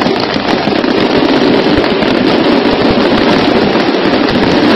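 Fireworks display firing a dense barrage: many bursts and crackle overlapping into one loud, unbroken din with no gaps between the bangs.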